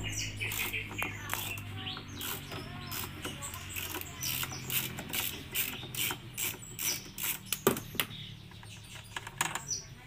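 Socket ratchet clicking in many quick, irregular strokes as it works the 13 mm nut off a top-load washing machine's gearbox pulley. Birds chirp in the background.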